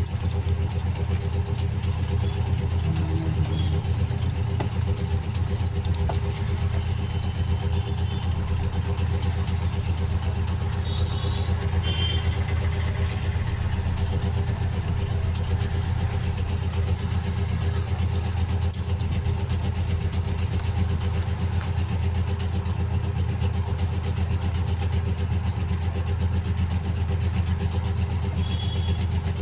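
A steady low hum like a motor or fan running, with a few faint clicks.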